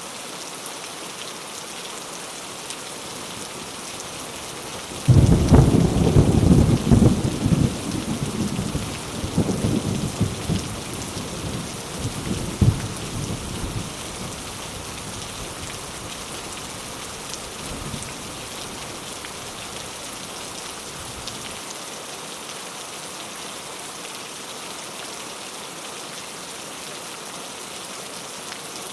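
Steady rain falling, with a thunderclap about five seconds in that rumbles and crackles for several seconds, with one sharp crack near its end, before fading back to the rain.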